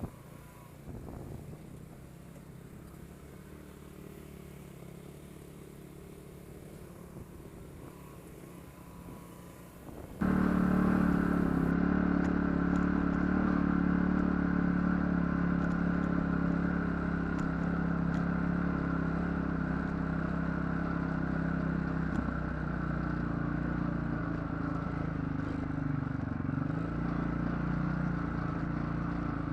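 ATV engine running under way on a rough trail, with small knocks and rattles. About ten seconds in, the sound jumps abruptly to a much louder, steady engine note that holds to the end.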